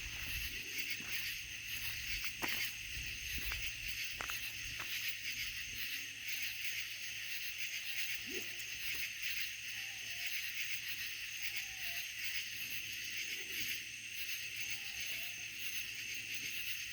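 Night-time chorus of crickets trilling steadily, with a few faint clicks.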